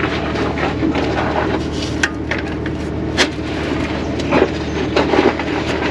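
Metal parts and hand tools clinking and knocking, with a few sharp clanks, over a steady low mechanical hum.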